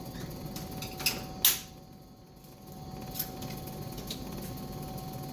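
Steel toolbox drawer sliding on its ball-bearing slides and shutting, with a click about a second in and a sharp bang just after, then a few faint clicks as the next drawer is handled.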